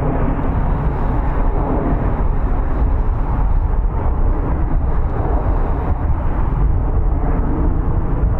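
Steady low rumble of airfield ambience, with no siren heard.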